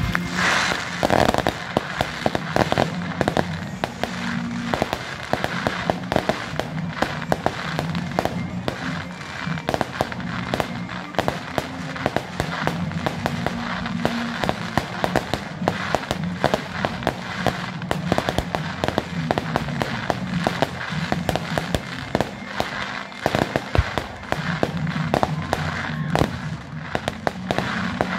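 A fireworks display going off in quick succession: a dense run of bangs and crackles, with a big burst about a second in. Music with low held notes plays underneath.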